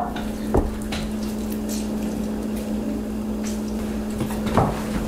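Steady background hum with a constant low tone, broken by two soft knocks, one about half a second in and one near the end.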